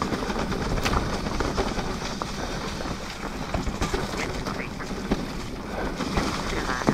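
Mountain bike riding over a dirt trail: a steady rolling noise from tyres and chain, with sharp knocks and rattles scattered through it as the bike crosses roots and stones.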